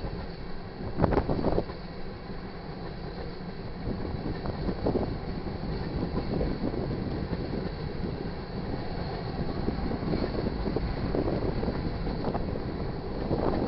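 Crude oil tank cars of a freight train rolling past with a steady rumble. The wheels clunk over the rail joints and crossing, loudest about a second in and again around five seconds.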